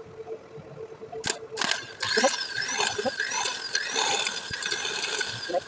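Two sharp clicks, then the starter motor of a Mitsubishi 6D14 inline-six diesel cranking the engine for about three and a half seconds with a wavering whine, and the engine does not fire. This is the no-start fault being tested.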